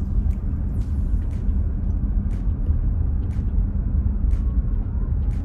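Road noise inside a moving car: a steady low rumble of engine and tyres, with faint ticks now and then.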